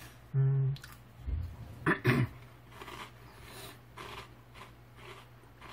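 A man's brief wordless vocal sounds: a short hummed 'mm' about half a second in and a breathy sound near two seconds in, with a soft low thump between them. After that the room is quiet except for a faint steady low hum.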